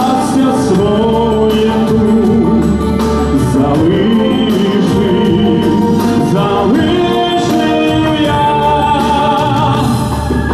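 A man singing a slow Ukrainian pop ballad live into a handheld microphone over instrumental accompaniment. Near the end his voice stops and the accompaniment carries on alone.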